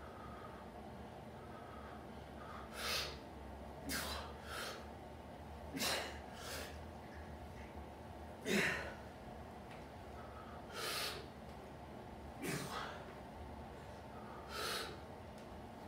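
A man's sharp, forceful breaths and gasps, about ten of them a second or two apart, as he strains to bend a steel bar by hand.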